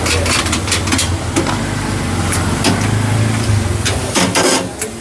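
Irregular metallic clicks and knocks from hand tools and bolts on a hybrid battery pack being bolted together, over a steady low hum that fades about four seconds in.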